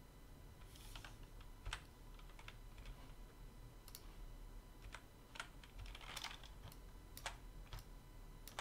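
Faint, irregular clicks of a computer keyboard being pressed, a dozen or so scattered keystrokes with uneven gaps between them.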